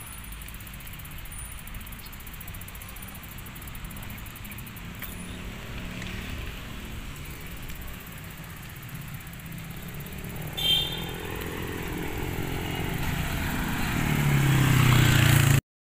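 Road traffic: a steady low rumble, a brief high-pitched beep about two-thirds of the way through, then a motor vehicle's engine growing louder and passing near the end, cut off suddenly.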